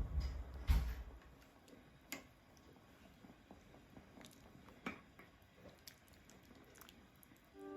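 Quiet eating sounds: soft chewing with a few small clicks scattered through, and a low thump about a second in.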